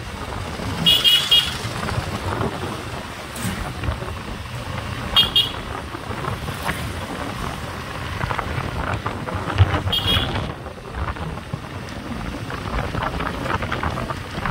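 Steady engine rumble and road noise from a moving vehicle on a town street, with short vehicle-horn toots about a second in, about five seconds in and again near ten seconds.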